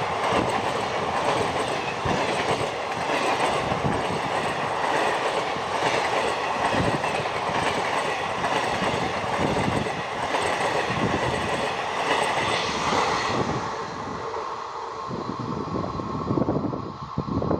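An Indian Railways passenger train's coaches rushing past at speed, a dense rushing noise with the wheels clattering rapidly over the rail joints. About three-quarters through, it gives way to a quieter, duller rumble.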